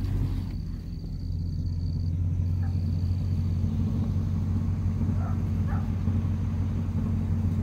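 A vehicle running, heard from inside the cab: a steady, unchanging low engine and road rumble.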